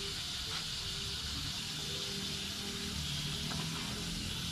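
A steady high-pitched hiss with a faint low hum underneath, unchanging throughout.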